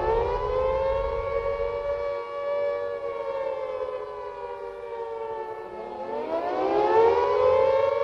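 Air-raid siren wailing. Its pitch settles high after winding up, sinks slowly from about three seconds in, then winds up again near the end.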